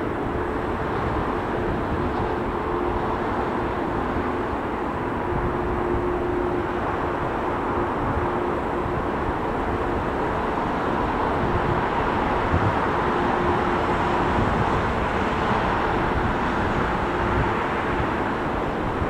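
Airbus A350-1000's Rolls-Royce Trent XWB engines on final approach with the gear down: a steady jet hum with a faint whine, growing a little louder as the airliner nears.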